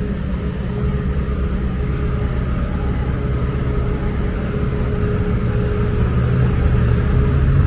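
Road traffic on a busy city street: vehicle engines and tyres in a steady low rumble with a faint steady hum over it, growing louder near the end as a car comes close.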